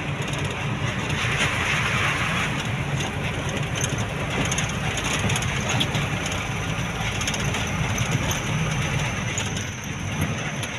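Steady engine drone and road noise of a moving vehicle, heard from inside its cab.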